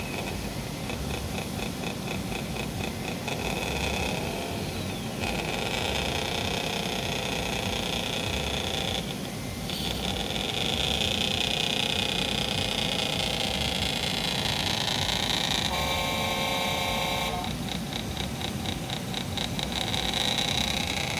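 Radio-controlled tipper truck driving over a sand track: a steady mechanical drone with a fast ticking rhythm at the start and near the end, and a horn toot about a second and a half long about sixteen seconds in.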